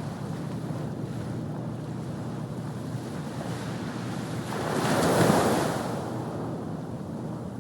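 Pacific Ocean surf washing steadily, with wind buffeting the microphone. About five seconds in, a louder rush of water swells up and fades over a second or so.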